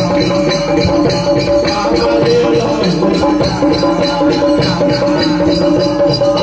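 Devotional folk music in an instrumental passage, with held melodic tones over a fast, steady shaker rhythm.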